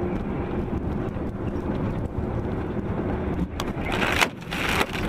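Steady road and engine drone inside a vehicle cab on a wet highway, then about four seconds in two loud hissing splashes as a wave of slush hits the windscreen.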